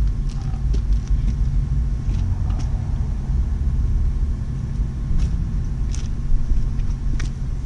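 Steady low rumble with a few light clicks over it.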